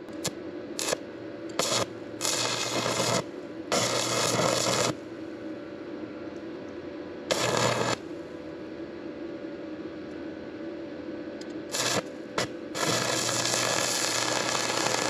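Stick-welding arc from a Rubik MMA 225 inverter welder burning a Fleetweld rod at 120 amps. A few short crackles as the arc is struck, then a sizzling crackle in stretches of about a second, and a longer unbroken run near the end. The welder judges the current a little too hot.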